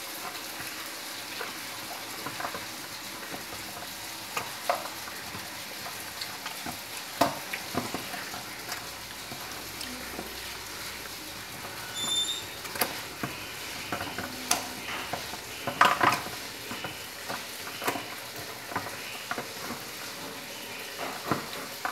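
Homemade borax slime being squeezed and kneaded by hand: a steady soft wet noise with many small scattered pops and clicks, louder about two-thirds of the way in.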